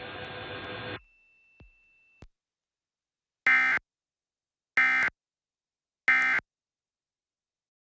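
Emergency Alert System SAME digital data bursts: three short, buzzy bursts about a second apart, following a cutoff of the program audio about a second in. Bursts this short are typical of the end-of-message code that closes a Required Monthly Test.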